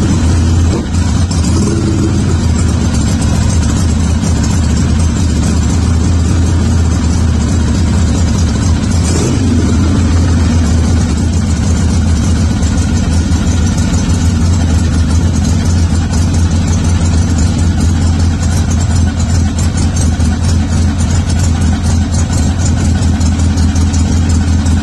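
Harley-Davidson Ironhead Sportster V-twin idling steadily, with one short rev about nine seconds in.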